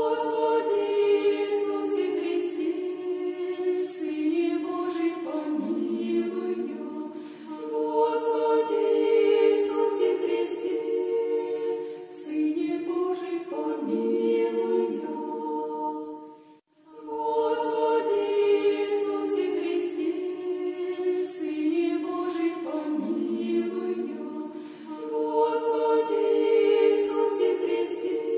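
Unaccompanied Orthodox choir chanting a prayer in several voice parts, held sustained notes. About 17 seconds in, after a short breath, the same chanted phrase begins again.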